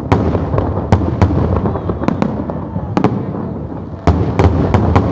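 Fireworks display: a rapid series of sharp bangs and crackles over a continuous rumble of shell bursts, with a fresh volley about four seconds in.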